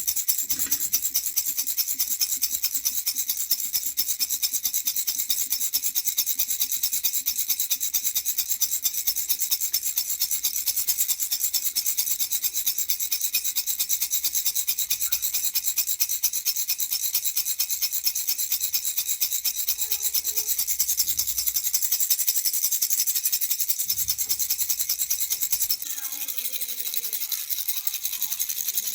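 Baby rattle (jhunjhuna) shaken fast and steadily, a dense, even, hissing rattle of beads. It gets a little quieter near the end.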